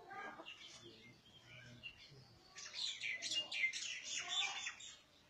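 Small birds chirping in a quick, dense chatter for about two seconds past the middle, high-pitched and much louder than the faint voices heard at the start.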